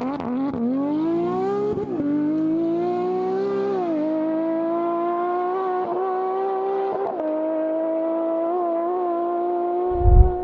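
Porsche 718 Cayman GT4 RS's naturally aspirated flat-six at high revs through a Valvetronic Designs exhaust. The pitch climbs and then drops at upshifts about two and four seconds in, then holds a steady high note with small dips. A short low thump comes near the end.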